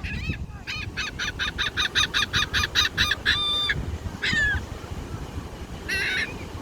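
Gulls calling: a fast run of about a dozen short, laughing cries, then one longer held cry and two single calls later on.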